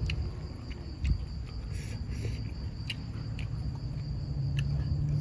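Crickets chirring steadily at night, with a few light clicks of a spoon against a plate and a soft knock about a second in.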